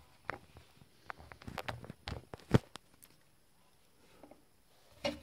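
Handling noise: a run of light clicks and knocks as objects and the hand-held camera are moved about, with the loudest knock about two and a half seconds in and another near the end.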